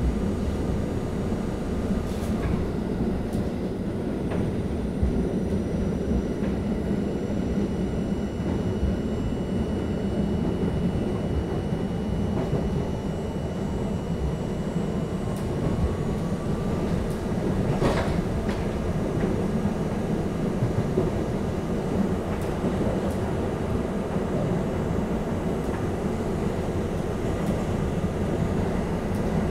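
R32 subway car running along the track, heard from inside the car: a steady rumble of wheels on rail with occasional sharp clicks, the loudest about eighteen seconds in, and a faint rising whine around the middle.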